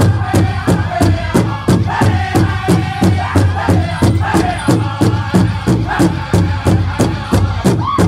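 Powwow drum group playing a chicken dance contest song: a big drum struck in a fast, even beat of about three strokes a second, under high-pitched group singing.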